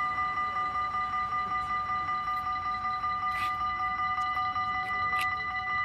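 Dutch railway level-crossing bell ringing rapidly and evenly while the barriers are down, warning that a train is passing. A train goes by under the ringing, with a couple of faint sharp knocks.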